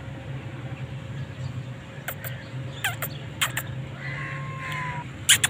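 A kitten crunching dry kibble, heard as a few short sharp crunches in small clusters, loudest near the end, over a steady low background hum.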